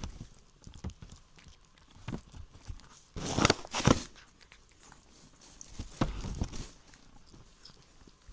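Kitten licking and eating food close to the microphone: small wet clicks and lapping, with two louder noisy bursts, one about three seconds in and one around six seconds.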